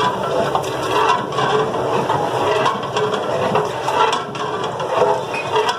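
Steady hiss of a lit gas burner under a large aluminium degh, with a long metal ladle scraping and clinking against the pot as the korma is stirred.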